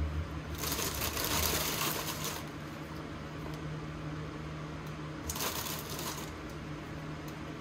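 Crinkling of cookie packaging as vanilla wafers are taken out and laid into the pudding. It comes in two bursts, one of about two seconds near the start and a shorter one past the middle, over a steady low hum.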